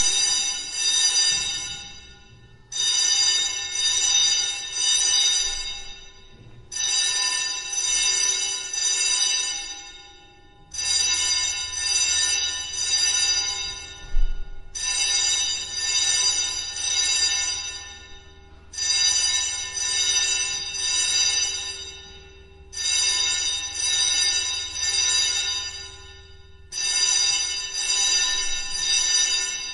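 Fire alarm sounding in eight ringing bursts of about three seconds each, one every four seconds with short pauses between them. A brief knock comes about halfway through.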